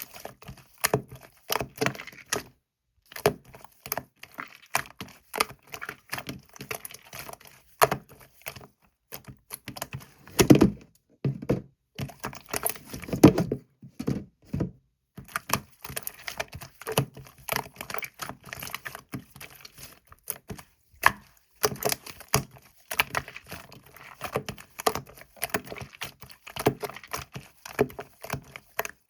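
Many quick, irregular clicks and taps, with a couple of louder knocks about ten and thirteen seconds in.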